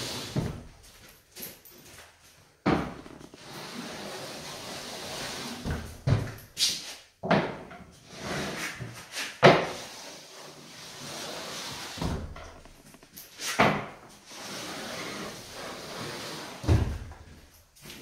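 Tapepro compound applicator tube with a CF-75 corner finisher head working drywall internal corners: irregular knocks and thumps, about eight in all, as the tube and head are set into and pushed along the corner, with a scraping hiss in between.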